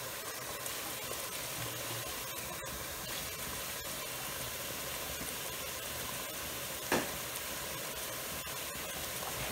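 Chorizo meatballs, mushrooms, olives and diced tomatoes sizzling steadily in the inner pot of a 20-cup rice cooker as they saute. There is a single short knock about seven seconds in.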